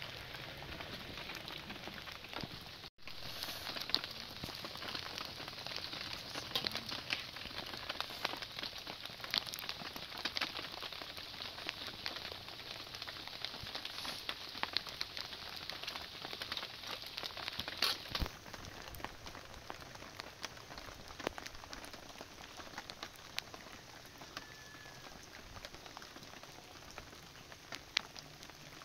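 Steady rain falling, with many small drops pattering and ticking close by. The sound cuts out for an instant about three seconds in and is a little softer in the last third.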